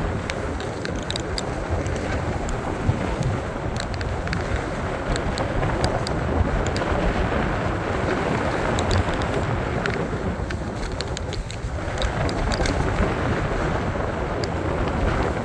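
Wind buffeting the microphone while snowboarding downhill, a steady rushing noise with the board sliding over the snow and small scattered clicks and scrapes.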